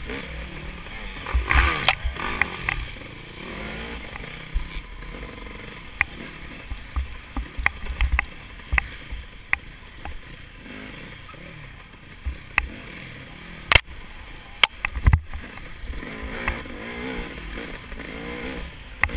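Dirt bike engine revving up and down as the throttle is worked over rough trail, with frequent sharp knocks and clatter.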